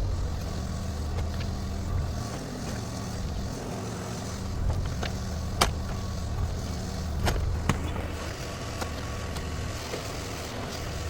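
Shantui STE35SR mini excavator's engine running steadily, with several sharp cracks and knocks, the loudest about five and a half seconds in.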